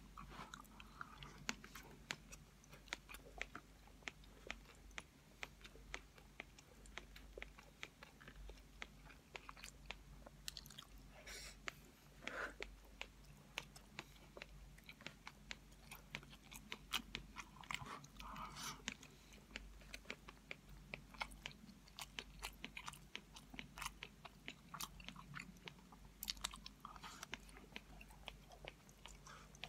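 A person chewing a mouthful of cooked rice close to the microphone: faint, irregular wet clicks of the mouth and teeth throughout.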